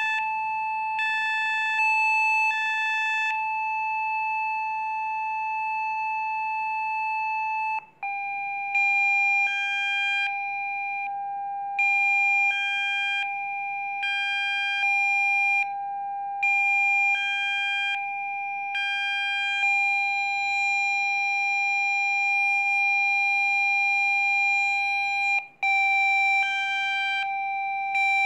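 Synthesized Rife frequency tones: a steady electronic tone with overtones, with higher tones pulsing on and off every second or two. The sound cuts out briefly about eight seconds in and again near the end, and each time the main pitch resumes a little lower.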